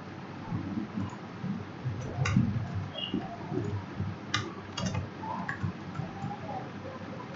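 Computer keyboard typing: an irregular run of soft key thuds, with a few sharper clicks about two, four and a half and five seconds in.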